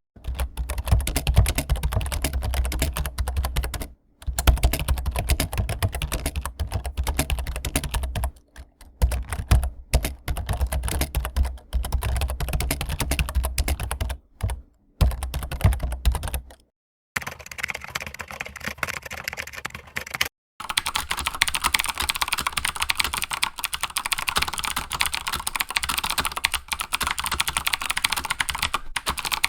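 Computer keyboard typing sound effects played one after another: runs of rapid key clicks, each a few seconds long, broken by short silent gaps. The first runs have a heavy low thud under the keys; the later ones, from a little past halfway, are lighter and brighter.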